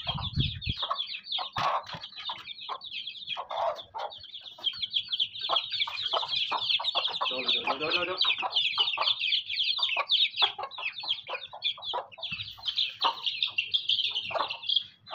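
Chicks peeping continuously in a high, busy chorus, with a hen clucking over them.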